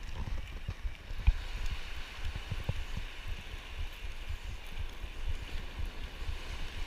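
Ocean surf hissing steadily, with wind buffeting the microphone in irregular low thumps, one sharper thump about a second in.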